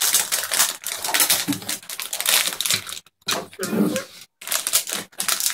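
Wrapper of a chocolate-coated wafer bar being crinkled and torn open by hand, in a rapid, irregular crackle with two short pauses.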